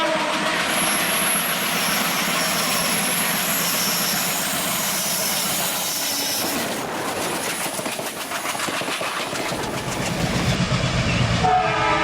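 Train running on the track: a steady rumble and hiss of wheels on rail, with faint high wheel squeal and a run of rhythmic clickety-clack knocks midway. A diesel locomotive horn starts to sound near the end.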